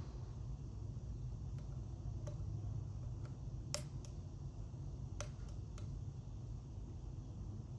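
Small, irregular metallic clicks from picking an Illinois Duo wafer padlock, as the pick and tension wrench work the wafers. The loudest click comes a little under four seconds in, and a steady low hum runs underneath.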